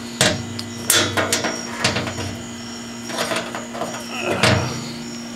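Handling noise: about half a dozen irregular knocks and clicks as a handheld camera is moved and fumbled, over a steady low hum.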